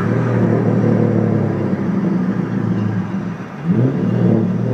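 V8 engine of a C5 Corvette fixed-roof coupe pulling steadily under way, heard from inside the cabin. About three and a half seconds in the engine sound dips briefly, then pulls again.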